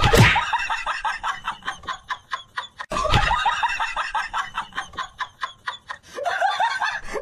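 Hard, rapid laughter in quick repeated bursts, with a loud thud at the start and another about three seconds in.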